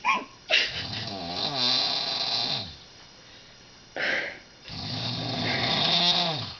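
A woman's very loud snoring: two long snores about four seconds apart, each lasting about two seconds. A short, sharp breath sound comes just before each one.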